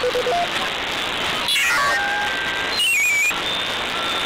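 Shortwave receiver audio from a software-defined radio being tuned across the 40-metre band: a steady hiss of static with whistling tones that slide down in pitch as signals are tuned past, about one and a half seconds in and again around three seconds in.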